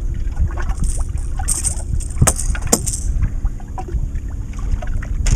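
Wind rumbling on the microphone in a small boat on choppy water, with water lapping and a high hiss. Two sharp knocks a little over two seconds in, about half a second apart.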